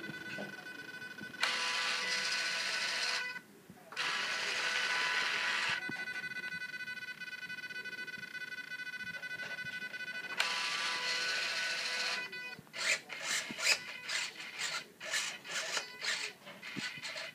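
Hobby servos (Hyperion DS09-AMD) driving the GWS retractable landing gear of a foam RC F-15: a steady high-pitched motor whine in spells of about two seconds, with a short break, a quieter spell and a louder one, as the gear cycles. From about thirteen seconds in, a run of irregular short scraping strokes takes over.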